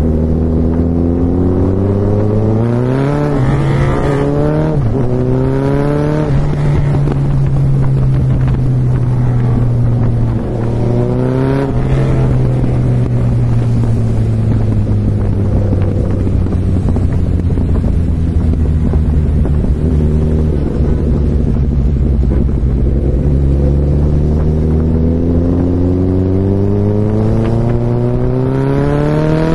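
Suzuki Hayabusa's inline-four engine running under hard acceleration, its pitch climbing and dropping back at gear changes a few seconds in and again about 12 seconds in, cruising steadily between, then climbing in one long rise near the end.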